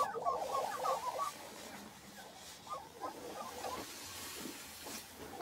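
Lesser prairie-chicken males displaying and calling: rapid runs of short notes, one in the first second or so and another about three seconds in.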